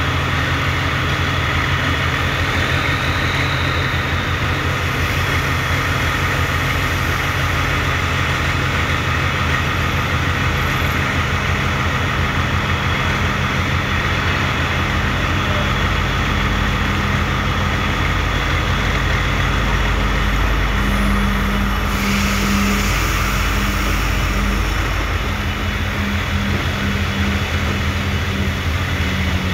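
Diesel train engines running with a steady, even hum. From about 16 to 25 seconds in, a deeper rumble builds as a train draws in alongside. A hiss joins about 22 seconds in.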